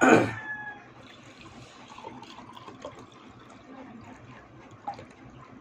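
A rooster crowing, its loud harsh final note cutting off within the first half second, followed by a low background with a few faint scattered ticks.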